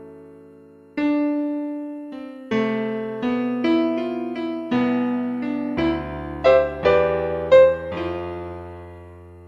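Background music: slow solo piano, struck notes and chords left to ring and fade, a fresh chord about a second in and a slow melody of single notes after that.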